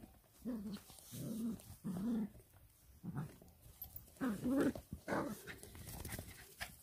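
A dog making a series of short whining cries that slide in pitch, about six of them, the loudest a little after four seconds in.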